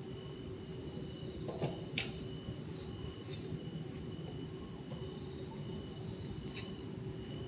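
Crickets trilling steadily over a low background rumble, with a few sharp clicks, the clearest about two seconds in and another near the end.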